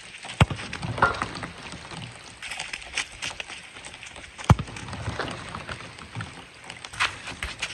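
A football kicked hard twice, about four seconds apart, each strike a sharp thud, with the player's footsteps on wet turf between the shots.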